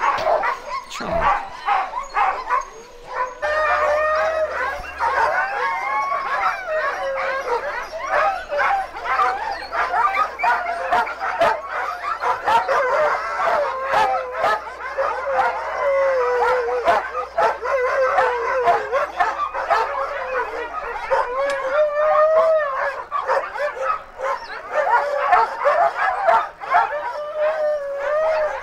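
A chorus of many sled dogs barking and howling together, their overlapping calls rising and falling without a break.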